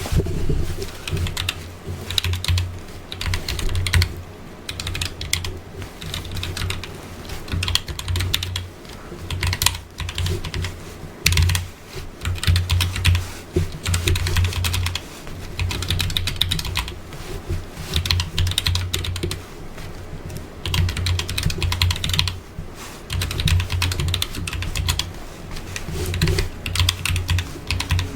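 Typing on a computer keyboard: keys clacking in quick runs of a second or two, broken by short pauses, each run with a low thud under the clicks.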